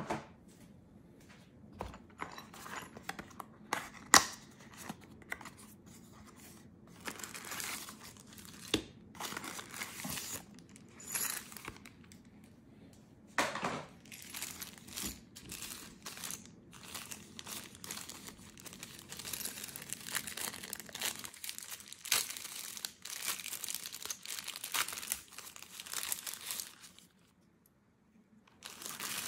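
Plastic packaging bag crinkling and rustling in bursts as it is handled, with a few sharp clicks and knocks, the loudest about four seconds in.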